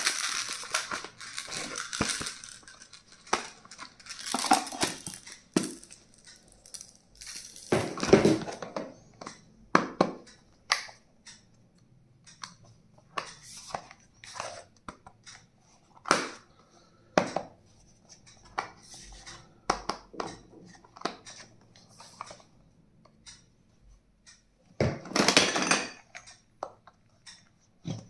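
Stationery being unpacked and handled at close range: packaging rustling and tearing in a few longer stretches, between scattered clicks and knocks of plastic items being picked up and set down.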